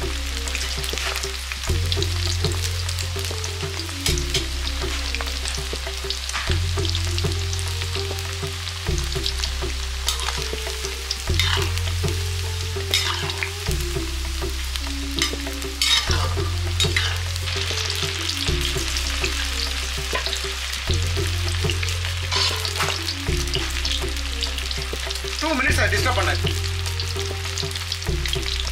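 Batter-coated cauliflower pieces deep-frying in hot oil in an aluminium kadai, sizzling steadily. Now and then a metal slotted spoon scrapes and knocks against the pan as the pieces are turned.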